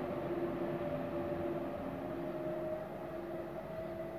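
Electric locomotive's traction electronics whining in two steady tones that drift slightly in pitch, over the rumble of the train as it pulls away, slowly fading.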